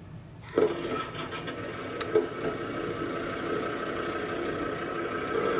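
Sound module of an RC bulldozer playing a diesel engine start-up through its small speaker. The sound kicks in suddenly about half a second in and settles into a steady idle.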